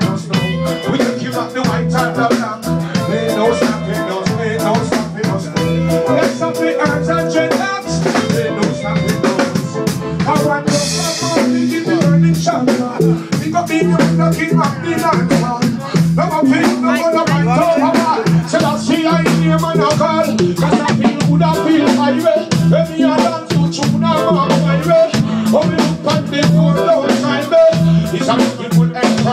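Live reggae music with a steady drum-kit beat, snare and rimshot hits over a pulsing bass line.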